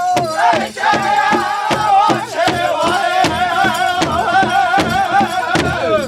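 Powwow drum group singing in high, wavering voices over a big hand drum struck in a fast, even beat, about three to four strikes a second. The song breaks off right at the end.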